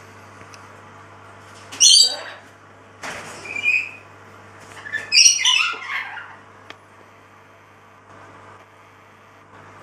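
An animal in the room calling three times, loud harsh cries about two, three and five seconds in, over a steady low hum.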